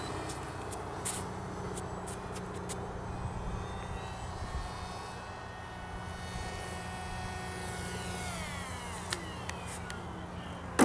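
RC Boeing ALCM parkjet model's pusher propeller and motor droning in flight, with its pitch sliding down about eight seconds in. A loud sudden burst of noise comes at the very end.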